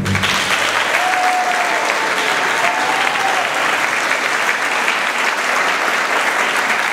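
Audience applauding steadily as the music ends, with two brief arching high calls rising out of the clapping about a second in and near three seconds.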